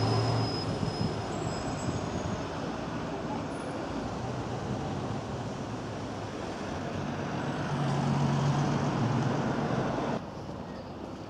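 Road traffic noise with a vehicle engine running, its low hum swelling about eight seconds in; the level drops abruptly near the end.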